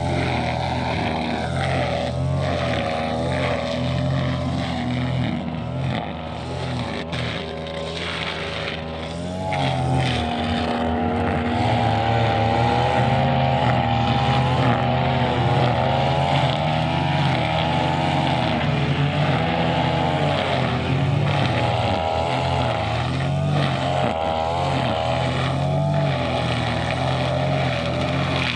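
Two-stroke brushcutter engine running at high revs, its pitch wavering up and down as it cuts grass. It eases off for a few seconds, then revs back up about ten seconds in.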